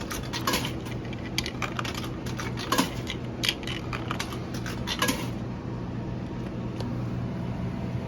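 Drink vending machine humming steadily, with a run of light clicks and clinks that stops about five seconds in.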